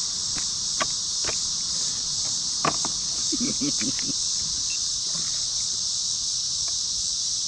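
Steady, high-pitched droning of insects, with a few sharp clicks and taps scattered through the first half.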